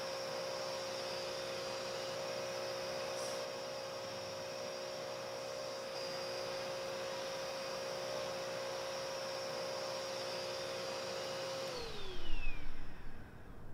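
Electric motor of a car wash vacuum running with a steady whine, then winding down with falling pitch near the end as it shuts off. Louder low thumps and rumbling start as it dies away.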